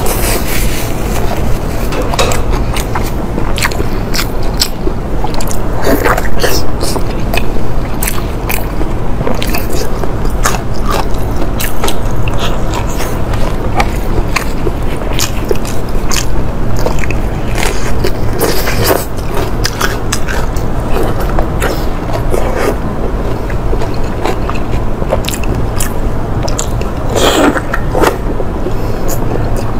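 Close-miked eating: biting and chewing with many short wet mouth clicks and smacks, over a steady low hum.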